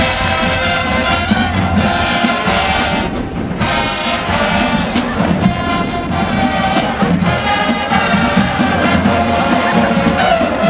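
Marching band brass section playing a loud, full tune with drums underneath.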